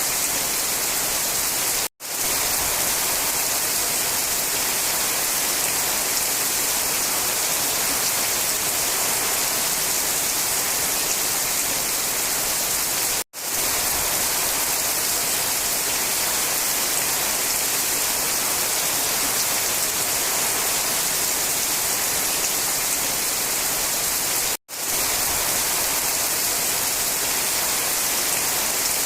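Steady hiss of heavy rain, even and unbroken except for three instant dropouts to silence, about eleven seconds apart.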